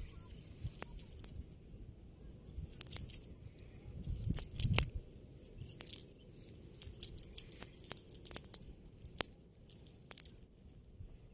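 Nylon cast net being handled on grass, with rustling, crinkling and scattered sharp clicks as the mesh is pulled apart to free the catch, and a louder bump and rustle about four and a half seconds in.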